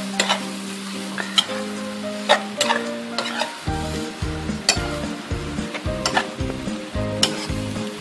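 Seafood and holy basil sizzling in a wok as they are stir-fried, with a spatula scraping and knocking against the pan now and then. Background music plays underneath, its low beat coming in about four seconds in.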